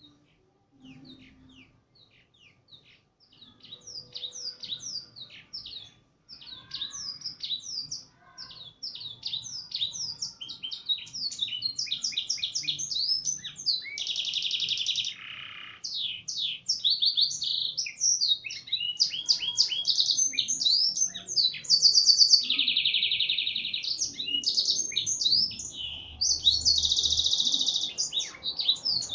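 Domestic canary singing a long, fast song of quick sweeping notes broken by several long buzzy trills, a canary tutored on black-throated canary (blackthroat) song. It starts faintly and grows louder over the first few seconds.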